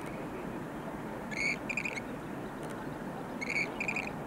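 Western grebe giving its two-part 'crick-kreek' call twice, about a second in and again near the end, over a steady low background hiss.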